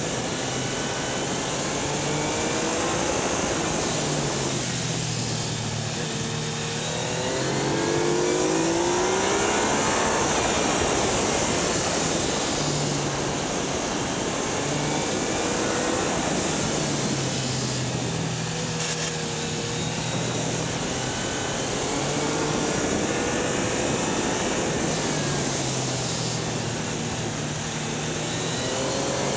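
Yamaha Niken's 847 cc three-cylinder engine rising and falling in pitch several times as the rider accelerates and eases off, under steady wind rush on a camera mounted low on the front suspension.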